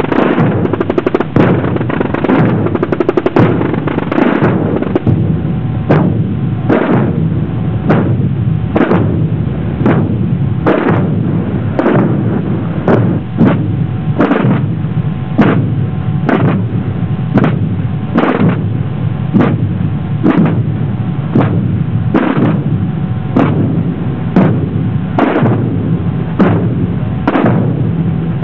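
Massed Holy Week procession drums: rope-tensioned tambores keep up a constant rolling rattle while bass drums (bombos) strike a steady beat about once a second.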